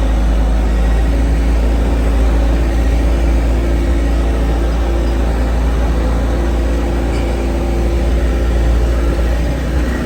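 Farm loader's diesel engine running steadily with a heavy low rumble, heard from inside the cab while the bucket works muck out of a yard.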